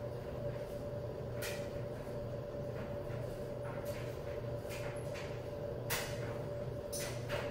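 A steady low hum with a handful of short, sharp clicks scattered through it; the sharpest click comes about six seconds in and another just before the end.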